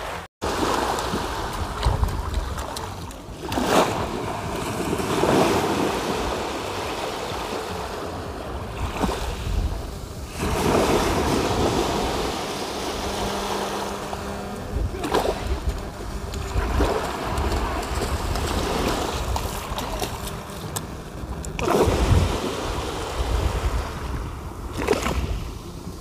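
Small sea waves breaking and washing up a sandy shore, the surf swelling and easing every few seconds, with strong wind rumbling on the microphone.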